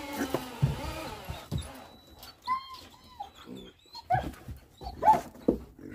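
An animal giving short, high, bending cries in scattered bursts, mixed with a few knocks.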